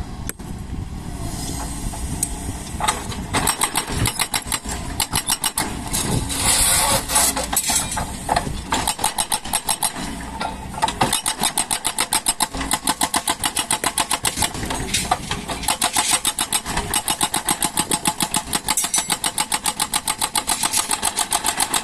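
A Doosan DX140 excavator's diesel engine running under work. From a few seconds in, it is overlaid by a rapid, regular pulsing of about four or five beats a second.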